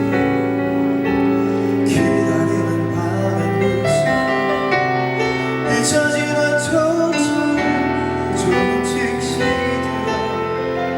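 Slow piano-led ballad accompaniment with sustained chords, playing before the vocal line comes in.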